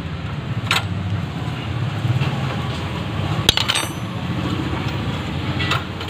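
Metal spanner clicking and clinking on a 12 mm bolt as it is worked loose on a motorcycle's rear brake: a few sharp metallic clicks, the loudest about three and a half seconds in with a brief ring after it, over a low steady background rumble.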